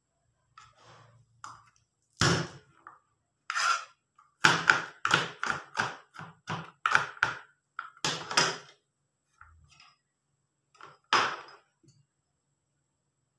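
Kitchen knife chopping garlic cloves on a plastic cutting board: a few scattered strikes, then a quick run of chops, about three to four a second, through the middle, and one last hard chop near the end.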